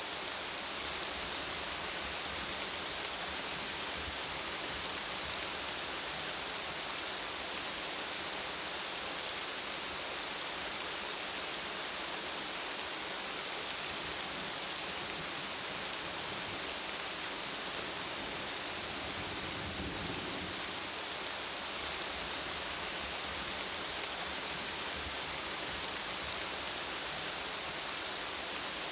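Steady rain falling: an even, unbroken hiss of drops with no pauses.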